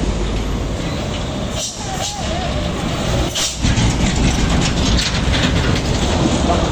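Heavy trucks driving past on a highway with loud engine and tyre noise. It grows louder as a truck passes right alongside about four seconds in.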